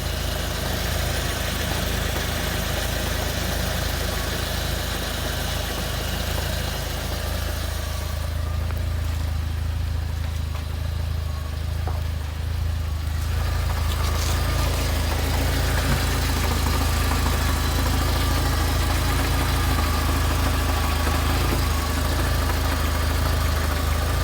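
UAZ Patriot idling with a knock from its manual gearbox, a fault that shows at idle. The running is steady, with the sound growing a little louder about halfway through.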